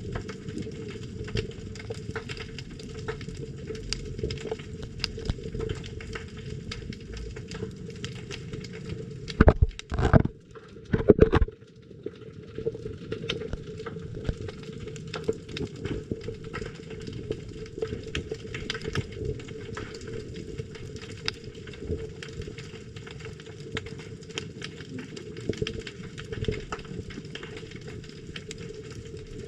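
Underwater crackle of many fine clicks, the sound of snapping shrimp, over a steady low hum. A few loud knocks come around ten to eleven seconds in.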